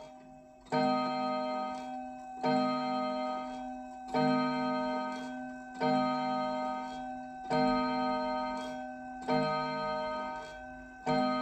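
French-made mantel clock striking the hour of eleven: seven evenly spaced strokes about 1.7 seconds apart, each a struck ringing tone that fades slowly before the next.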